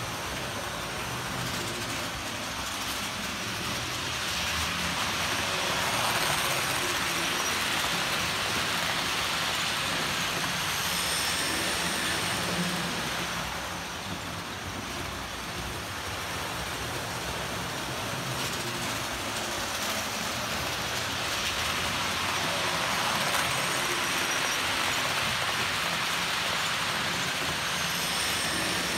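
Model trains, a Jouef Eurostar and a train of Bachmann multifret container wagons, rolling along the layout's track with a steady rushing, rattling noise. It swells louder twice, from about four seconds in and again from about eighteen seconds in, as the trains run close by.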